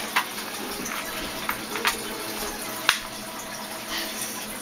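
A handful of sharp clicks and light clatters of small metal screwdriver bits being rummaged through, over a steady background hiss.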